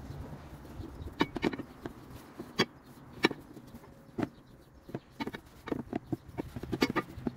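Irregular handling noise: scattered sharp clicks and knocks with crinkling as wet paper towels are peeled off a steel motorcycle engine guard and the bar is shifted against a plastic tub.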